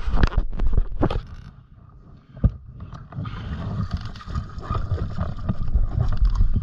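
Water splashing and sloshing around a diver's fin at the foot of an entry ladder, with several knocks from gear and handling in the first second and one more about two and a half seconds in.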